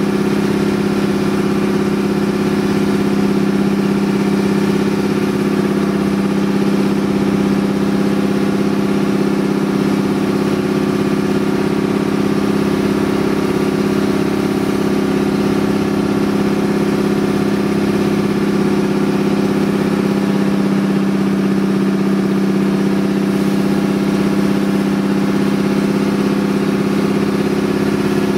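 Outrigger boat's engine running at a steady, unchanging pitch while under way.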